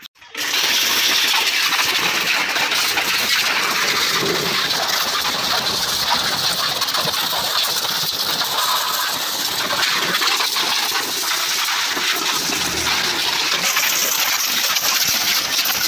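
Pressure washer running, its high-pressure jet of water hissing steadily as it sprays a scooter's bodywork and the floor beneath; it starts abruptly about half a second in.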